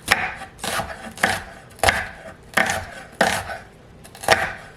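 Kitchen knife slicing an onion on a cutting board, about seven unhurried strokes, each a crunchy cut ending in a knock on the board.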